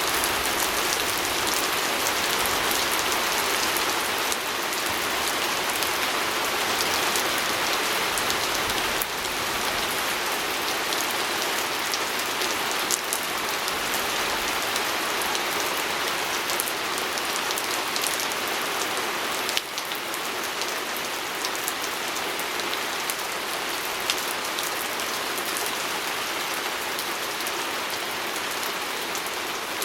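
Steady rain pattering on a window, a dense even hiss of drops with scattered sharper ticks.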